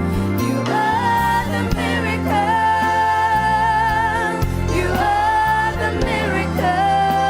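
Women singing a gospel song in long held notes with vibrato, over a steady organ accompaniment.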